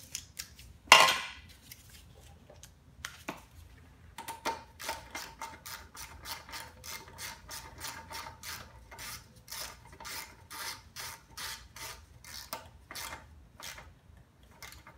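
Hand ratchet clicking in quick back strokes, about three clicks a second, as it tightens the bolt holding the dipstick tube on a Briggs & Stratton lawn mower engine. A single sharp knock about a second in.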